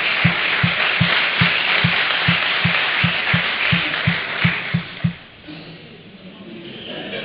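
Music with a fast, steady drum beat and audience applause over it, both stopping about five seconds in.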